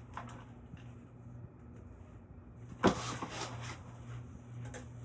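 Craftmade Valencia ceiling fan running on high, its motor giving a steady low buzzing hum whose cause the owner is not sure of. A single sharp click about three seconds in.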